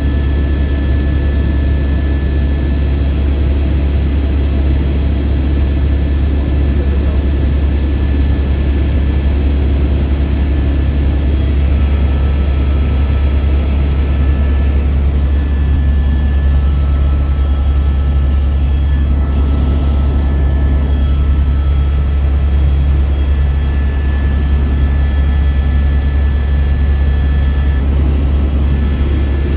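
Helicopter in cruising flight heard from inside the passenger cabin: a loud, steady, low drone of the rotor and turbine, with thin steady whines above it.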